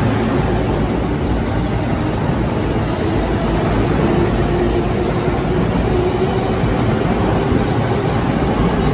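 Keihin-Tohoku Line E233 series electric commuter train running along the platform: a steady rumble of wheels and running gear, with a faint steady motor tone through the middle.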